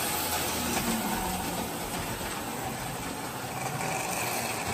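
Lionel electric toy trains running on three-rail tinplate track: a steady rumble and rattle of wheels on the rails with a faint motor hum. A faint higher whine comes in near the end.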